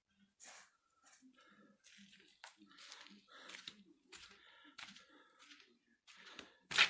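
Faint, irregular footsteps crunching on sandy ground, with a louder scrape near the end.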